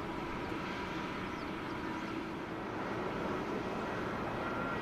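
Airliner jet engines running at low power: a steady rushing hum with faint steady whining tones.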